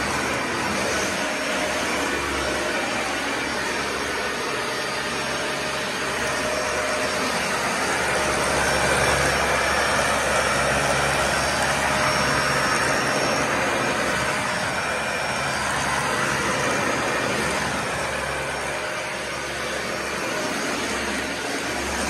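Dyson Ball Animal 2 upright vacuum cleaner running steadily as it is pushed across a hard floor, a little louder for a few seconds around the middle.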